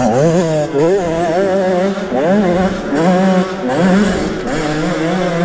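Two-stroke enduro motorcycle engine running hard, its pitch wavering up and down continuously as the throttle is worked.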